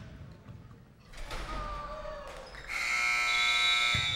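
Gym scoreboard buzzer sounding one steady, harsh tone for about a second and a half, starting a little before the end: the horn that marks the game clock running out.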